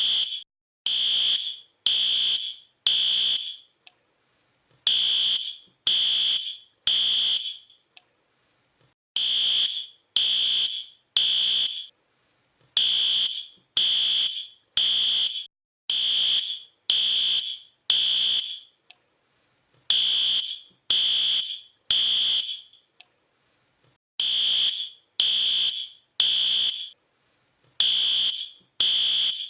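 Fire alarm beeping: loud, high-pitched beeps about one a second, mostly in groups of three with a short pause between groups, the temporal-three pattern that signals a fire evacuation.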